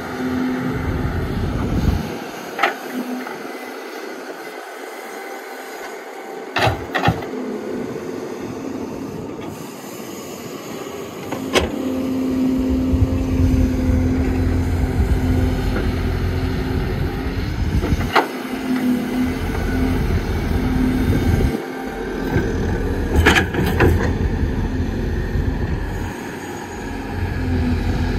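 Excavator loading a dump truck: heavy diesel engines running, getting louder about a third of the way in and again near the end, with several sharp knocks.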